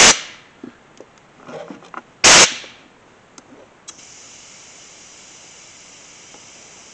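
Two short, loud blasts of compressed air, about two seconds apart, as a shop-air hose's quick coupler is pushed onto the brass fitting of a leak-down tester, with a few small metal clicks. From about four seconds in, a faint steady hiss of air feeding the tester.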